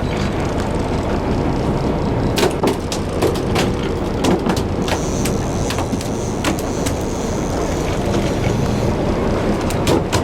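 Boat engine running at idle, a steady low rumble, with scattered sharp clicks and knocks from about two seconds in.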